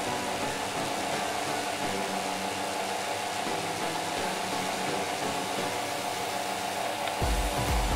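Small electric fan motor running steadily, a constant whirring hum. A deep low sound joins about seven seconds in.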